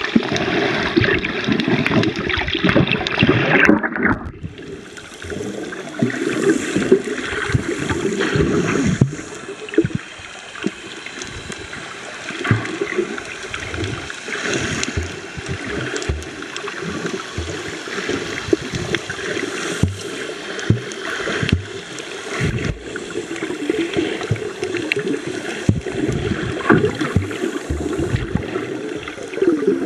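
Water heard through a camera held under water while snorkelling: brighter splashing and bubbling for about the first four seconds, then a muffled, dull sloshing with irregular low thumps and bubbles.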